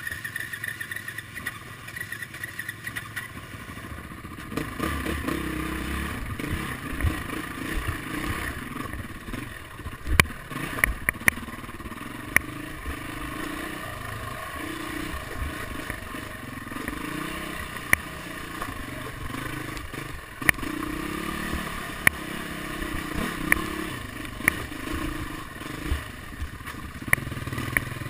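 Dirt bike engine running under load on a rough trail, its revs rising and falling as the rider works the throttle, with scattered sharp knocks and clatter from the bike jolting over ruts and roots.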